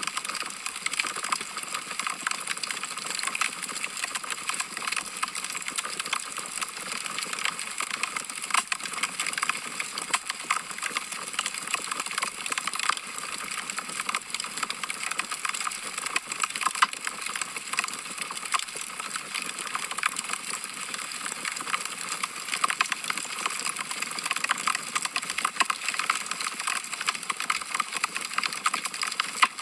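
Wood fire crackling on a fireplace grate: a steady stream of small pops and snaps, thin and bright, with little low rumble.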